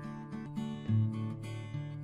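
Instrumental background music: a steady run of plucked-string notes, with a louder low note about a second in.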